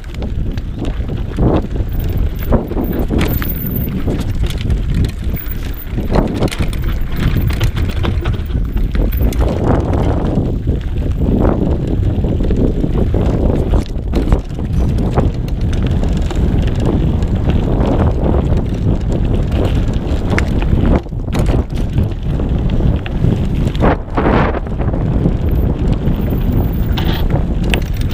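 Mountain bike descending a dirt forest trail at speed: continuous wind buffeting on the action camera's microphone and tyres rolling on dirt, with frequent knocks and rattles as the bike goes over bumps.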